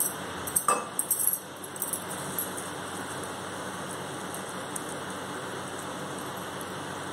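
A hand washing split moong dal in water in a stainless steel bowl: splashes and a few clinks against the bowl in the first couple of seconds, then a steady swishing.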